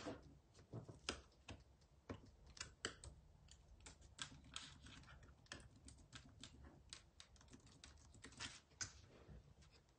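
Faint, irregular run of fingertip taps typing on a smartphone touchscreen, several taps a second.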